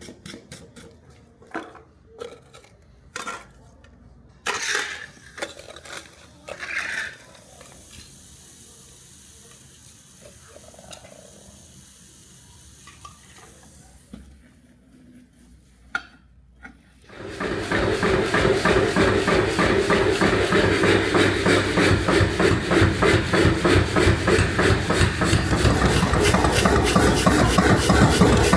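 Scattered light clinks and taps of tools on metal, then, a little over halfway through, a loud continuous abrasive scraping of metal begins and keeps going.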